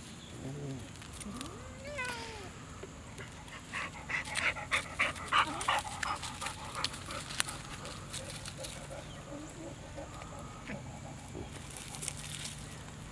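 Puppy panting in a run of short, quick breaths, about five a second, loudest for a couple of seconds near the middle.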